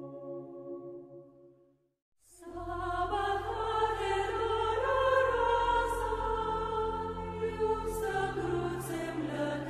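Soft ambient music fades out, leaving a brief silence about two seconds in. Then choral music begins, with sustained chords over a deep bass.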